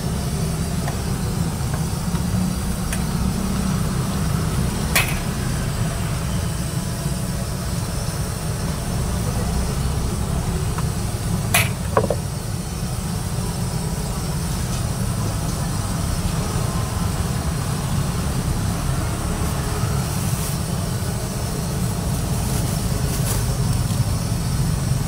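Gas wok burner running with a steady low roar under a big steel wok of simmering sauce. Two sharp metal clinks, about five and twelve seconds in, from the steel ladle knocking the wok.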